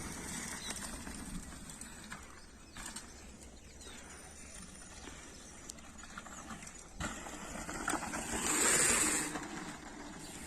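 Faint outdoor quiet, then a mountain bike's tyres rushing over a dirt trail as the rider goes past. The tyre noise rises about seven seconds in, is loudest for about a second, then fades.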